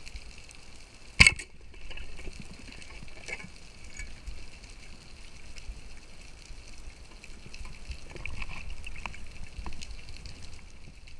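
A speargun fires underwater with one sharp, loud crack about a second in. After it there is a steady underwater hiss with scattered small clicks and knocks.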